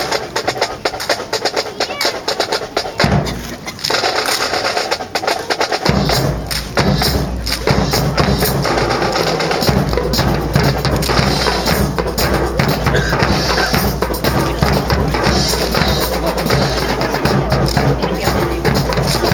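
Drum corps playing a fast marching percussion cadence: rapid snare strokes and stick clicks, with bass drums joining in heavily about six seconds in.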